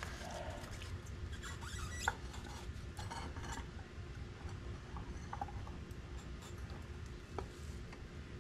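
Quiet handling noises from a scooter's front tyre and wheel being shifted by hand: soft rubbing with scattered light clicks and knocks, a sharper click about two seconds in and another near the end.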